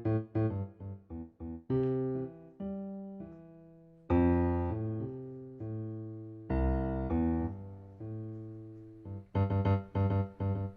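Solo piano music: a few quick repeated chords, then three long held chords that ring out and fade, then quick repeated chords again near the end.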